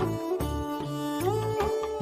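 Music with a steady, regular bass beat under a held melody line that rises and sustains about halfway through.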